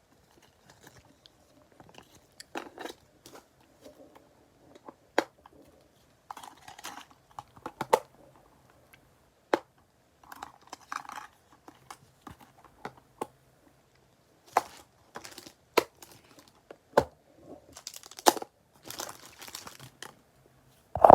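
Plastic packaging and wrappers being handled, crinkling and rustling in short patches, with scattered sharp taps and clicks as items are set down and opened.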